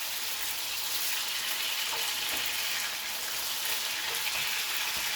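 Diced chicken breast frying in plenty of hot oil in a pan, a steady sizzling hiss as the water from the chicken cooks off.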